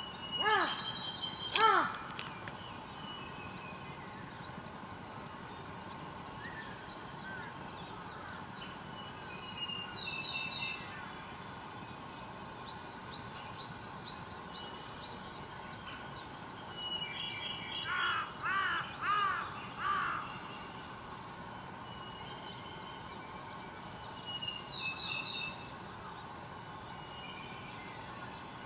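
A crow cawing, twice near the start and three times later, amid other wild birds calling. These include a quick run of short high-pitched notes partway through and scattered brief whistles.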